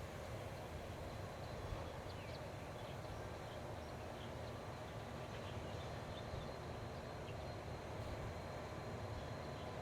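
Rice-field ambience: a steady low rumble and hiss with many short, high chirps scattered throughout, and a faint steady high tone under them.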